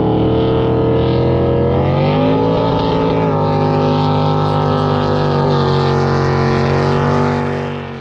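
Jet boat engine running hard at speed; its pitch rises about two seconds in, then holds steady, and the sound fades out near the end.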